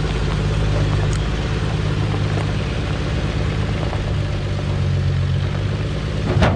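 1957 Chevrolet pickup's engine idling steadily. Near the end, a single sharp bang: the truck's unsecured battery dropping down into the engine bay.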